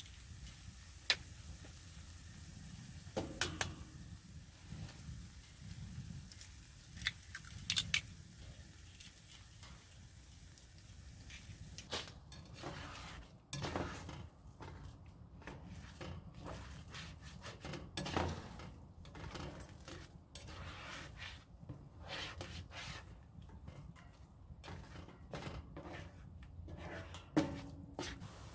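Eggs being cracked over a nonstick frying pan, a few sharp taps in the first eight seconds, then a plastic spatula scraping and stirring the eggs and diced ham around the pan in quick repeated strokes.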